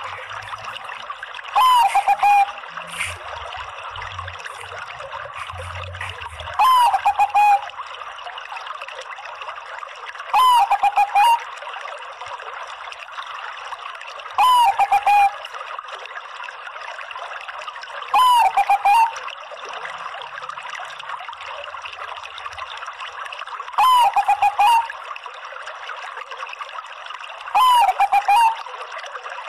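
Bangkok-bred zebra dove (perkutut) cooing its song: a short phrase of one sliding note and a few quick lower coos, repeated seven times about every four seconds, over a steady hiss.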